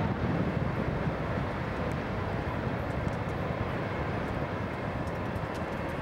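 Steady low rumble of a train running through a railroad tunnel, its sound closed in by the tunnel walls.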